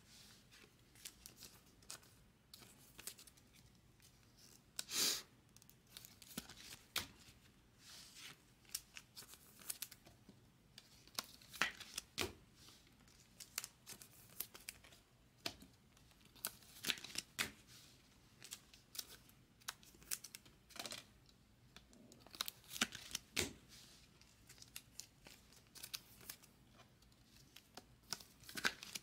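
Quiet, irregular short scrapes and rustles of glossy chrome trading cards and clear plastic card holders being handled: cards slid off a stack, flipped and slipped into sleeves.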